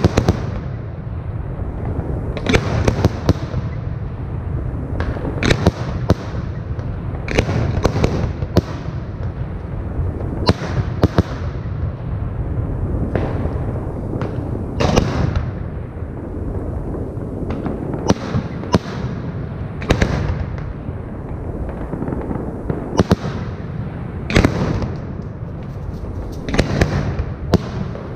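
Aerial fireworks shells bursting overhead: a steady run of sharp bangs, about one a second and sometimes in quick pairs, over a continuous low rumble.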